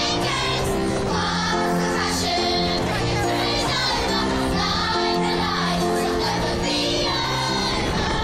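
A children's choir singing a song, carried over the stage's loudspeakers.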